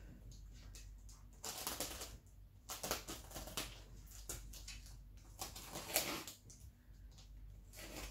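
Hands handling a parcel wrapped in plastic and packing tape: the plastic wrap rustles and crackles in short, irregular bouts.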